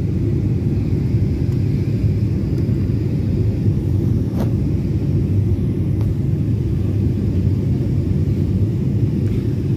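Steady low rumble of an airliner cabin in flight on descent: engine and airflow noise.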